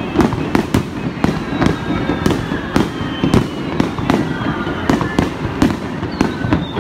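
Fireworks display: aerial shells bursting in a rapid, irregular string of sharp bangs, several a second.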